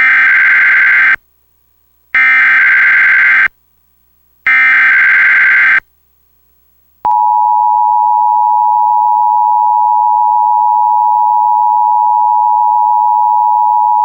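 Emergency Alert System SAME header: three identical bursts of warbling digital data tones, about a second each and a second apart, marking the start of an alert, here a Required Monthly Test. About seven seconds in, the EAS two-tone attention signal begins as a steady, harsh dual tone.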